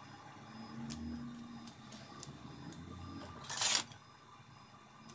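Light metal clicks and clinks as a bolt stacked with steel ball bearings is handled and fitted by hand, over low handling bumps. About three and a half seconds in comes one short, loud scraping rush, the loudest sound.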